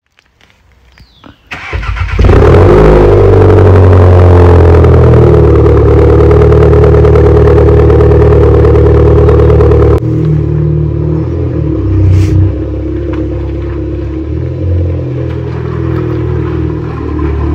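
Seat Leon 1.8 TSI four-cylinder turbo petrol engine, with its rear and middle silencers removed, starting about two seconds in and then idling loud and steady at the tailpipe. About ten seconds in it cuts to the same car heard from farther off, quieter and rising and falling in level.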